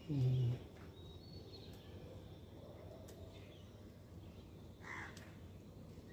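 A short voiced hum from a man at the start, then faint outdoor ambience with a few distant bird calls and small clicks.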